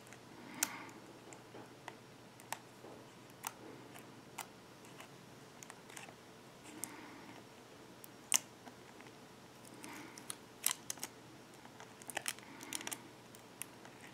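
Fingers handling small parts inside an opened tablet: scattered light clicks and taps, coming thicker toward the end.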